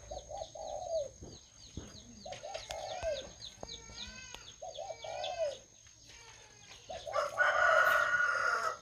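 Rooster crowing and other birds calling. Small birds chirp rapidly throughout, a lower call rises and falls every two seconds or so, and the loudest crow comes near the end.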